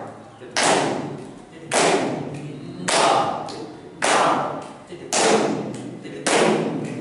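A group of people clapping in unison to keep the taal, one clap a little over every second, each echoing in the room. Voices recite tabla bols (the spoken syllables of the qaida) under the claps.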